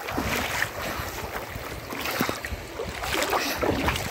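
Wind rumbling on the microphone over the rush of a flooded river's moving water, with scattered small splashes.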